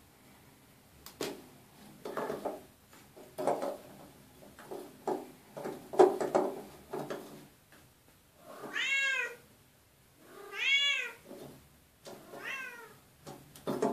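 A Bengal cat meows three times from inside a wooden cabinet, the first two calls long and the last one short, each rising and falling in pitch. Before the meows, in the first half, there are irregular knocks and scuffs against the wood as the cat paws at the hole in the panel.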